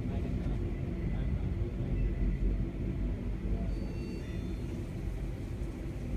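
Steady low engine rumble with a droning hum.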